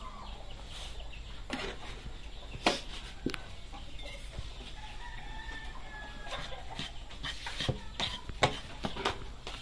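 A rooster crowing faintly in the background, over scattered sharp clicks and taps from a pepper shaker over a plate of dry breading. Near the end a spoon clinks and scrapes as it stirs the cornstarch mix.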